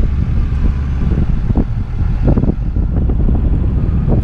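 An engine idling, a steady low rumble, with a few short knocks or rustles over it.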